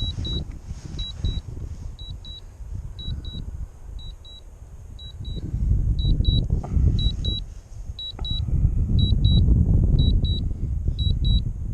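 Drone remote controller sounding its warning beeps, a high double beep about once a second, as the drone flies home on a low aircraft battery. Strong wind buffets the microphone underneath, gusting louder about halfway through and again near the end.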